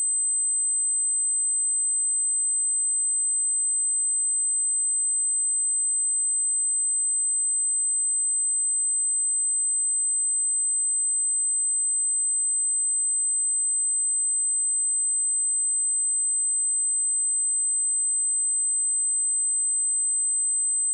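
A steady, high-pitched 8155 Hz sine-wave test tone, one pure tone held at constant level.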